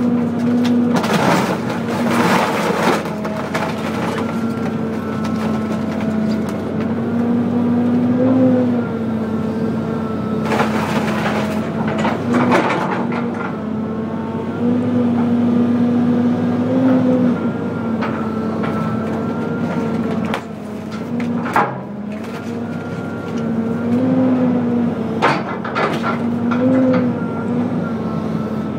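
2003 John Deere 230 LC excavator running under hydraulic load, heard from inside the cab; its diesel engine note rises and dips in pitch as the boom and bucket work. The bucket crushes a motorhome's body in spells of crunching and breaking a couple of seconds in and again around the middle, with a few sharp cracks later on.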